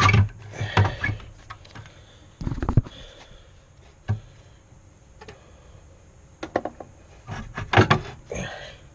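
2004 Saturn Ion alternator being worked by hand out of the engine bay, knocking and scraping against the surrounding engine parts and brackets: irregular clunks and rattles, the loudest at the start, about two and a half seconds in, and near eight seconds.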